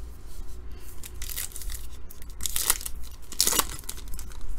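A foil trading-card pack wrapper being torn open by hand, crinkling in a few noisy bursts, the loudest about two and a half and three and a half seconds in.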